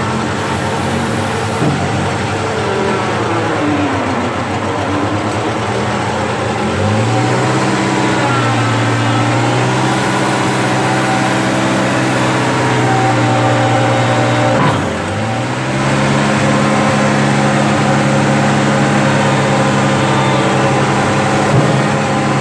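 Case 1830 skid steer engine running, its speed changing: it sags about four seconds in, picks up around seven seconds, then drops sharply near fifteen seconds and climbs back to a steady run.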